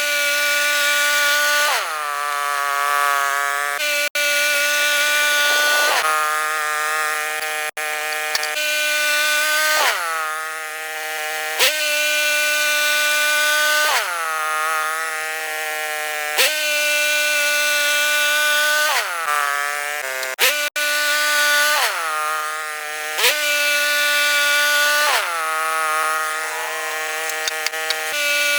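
Woodland Mills portable bandsaw mill sawing a red cedar log: a steady, high whine whose pitch dips briefly and recovers every few seconds.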